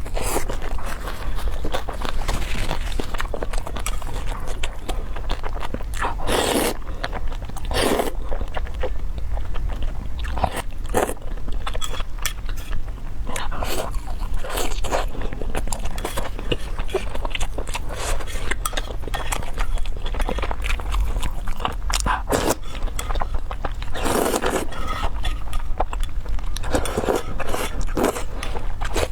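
A person eating close to the microphone: steady chewing and crunching with many small clicks, and louder noisy swells lasting under a second every few seconds.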